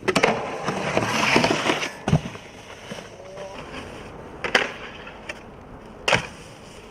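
Snowboard scraping and sliding for about two seconds, followed by a few sharp knocks of the board spaced a second or two apart.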